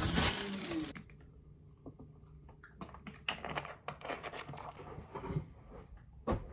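Plastic water bottle handled: a run of small irregular clicks and crinkles as its screw cap is twisted, after about a second of loud rustling from the camera being handled. A sharper click comes near the end.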